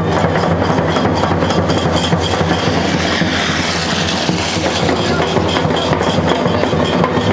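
Rhythmic clacking percussion, about four beats a second, over a steady background hubbub; a small motorcycle passes close by about three to four seconds in.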